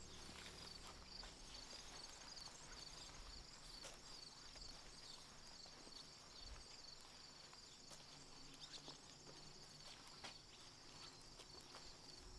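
Faint ambience: a steady, evenly pulsing high chirring like insects, with scattered light ticks and clicks.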